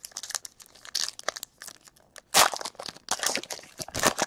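Crinkling and rustling as trading cards and a foil pack wrapper are handled during a pack opening. It comes as irregular crackles, loudest about two and a half seconds in and again near the end.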